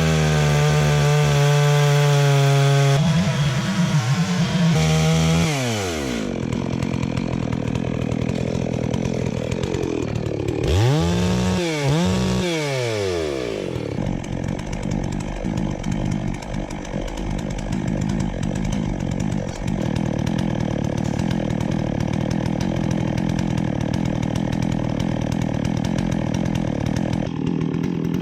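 Holzfforma G660 two-stroke chainsaw revved up and down several times, then running steadily at a lower note under load as it cuts along the log in a chainsaw mill.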